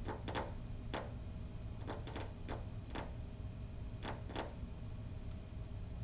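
American goldfinch tapping at the window glass from outside: about a dozen sharp taps in irregular clusters, single or two or three in quick succession. The uploader takes it for the bird fighting its own reflection.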